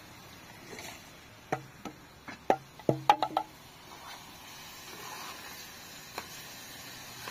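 A quick run of sharp knocks and clinks, some ringing briefly, about eight of them in two seconds starting about a second and a half in, then one more knock near the end.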